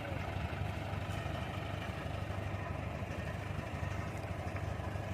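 Diesel engine of a heavy machine running steadily at low revs with a constant low hum.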